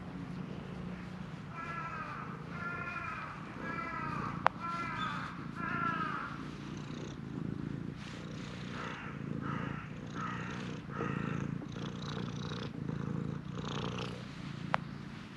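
Domestic cat purring steadily while it is stroked and rubs against a hand.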